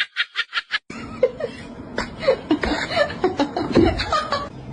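People laughing: a quick run of short breathy laughs, then chuckling and giggling over a steady background hum.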